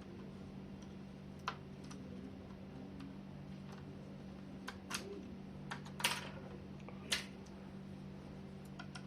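Several sharp clicks and taps of small hard laptop parts being handled during disassembly, scattered irregularly, the loudest about six seconds in, over a steady low hum.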